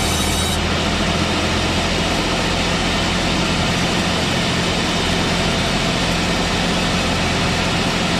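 Old manual-type sawmill machine running, a steady engine drone with a low hum.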